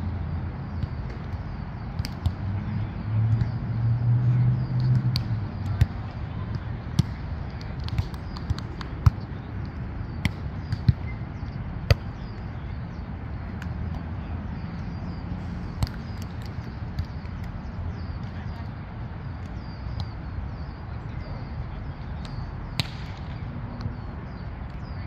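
A volleyball being hit now and then in play: sharp single smacks a second or several apart, over a steady low rumble that swells about four seconds in.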